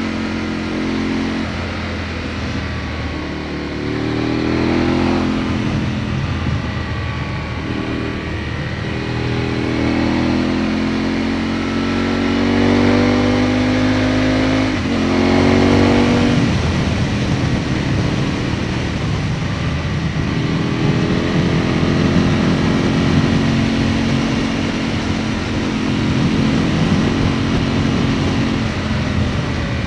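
Aprilia Tuono motorcycle engine heard from on board under riding, its revs rising and falling several times as it accelerates and eases off for bends, with a sharp climb about fifteen seconds in and a steadier note later on. Wind and road noise run underneath.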